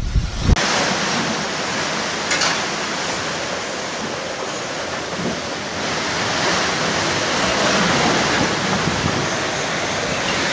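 Hurricane Irma's wind and driving rain making a dense, steady rushing noise. About half a second in it switches abruptly from a low, gusty rumble of wind on the microphone to an even hiss.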